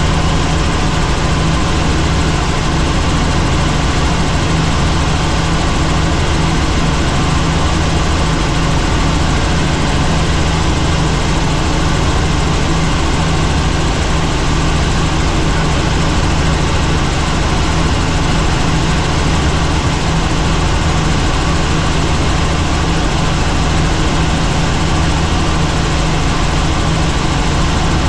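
Helicopter's turbine and rotor noise, a loud steady drone with a low hum that does not change.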